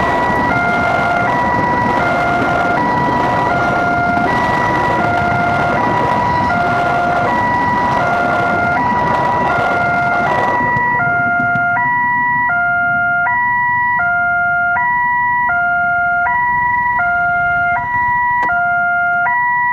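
Electronic level-crossing warning alarm sounding a steady alternating two-tone ding-dong, switching tones about every three-quarters of a second. For the first half a passenger train rushes past over the crossing, and its noise stops abruptly about halfway through as the last coach clears, leaving the alarm sounding alone.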